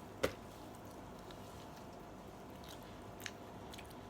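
Quiet eating of fried chicken bones: a sharp click shortly after the start and a fainter click about three seconds in, with faint chewing in between.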